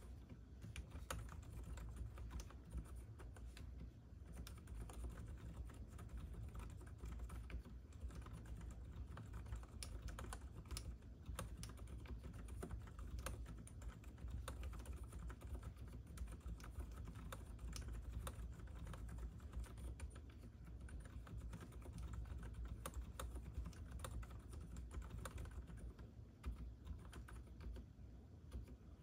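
Continuous steady typing on a Hansung GK787SE OfficeMaster full-size mechanical keyboard with lubed, low-noise non-clicky Hawk switches: a dense run of soft, muted keystrokes with a 'todok' sound.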